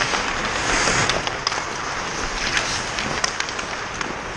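Ice hockey skates scraping and carving across the ice, with scattered sharp clicks from sticks and the puck.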